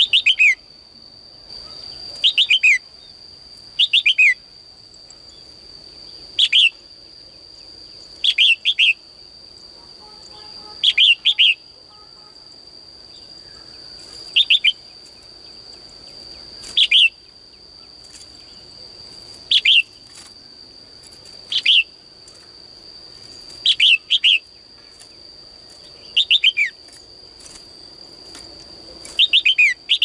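A caged female red-whiskered bulbul calling in short, loud, downward-sliding chirping phrases, one every two to three seconds. A steady thin high whine runs underneath.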